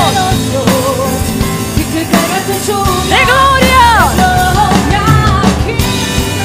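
Live worship song: women singing into microphones over a live band.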